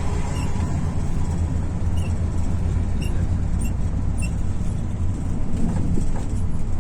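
Volvo bus's diesel engine running with a steady low rumble, and a few faint, short high squeaks at irregular intervals.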